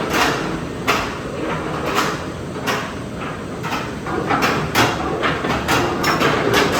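Floorless roller coaster's train and station machinery: a run of short, sharp hisses and clanks over steady rumbling noise.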